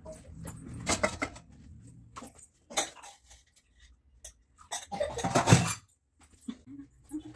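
Household clatter: scattered short clinks and knocks, like dishes and utensils being handled, with a louder noisy burst about five seconds in.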